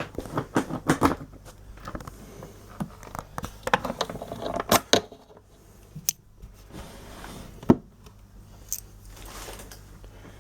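Keys working the lock of a plastic motorcycle top box, then scattered clicks, knocks and rustling as the box is opened and handled, with one sharp knock about three-quarters of the way through.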